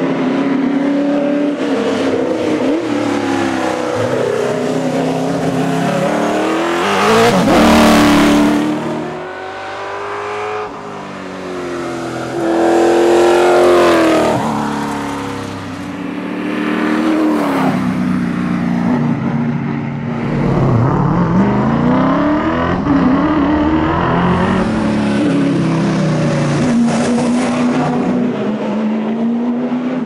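Holden HQ Monaro V8 rally car driven hard past in several passes, its engine note climbing and dropping as it accelerates and shifts; the loudest passes come about seven and thirteen seconds in.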